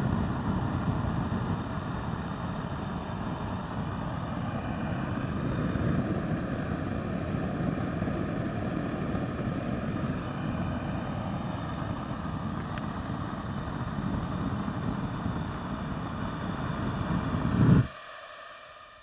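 Small forge gas burner running with a steady roar, then swelling briefly and cutting off suddenly near the end as the gas is shut off.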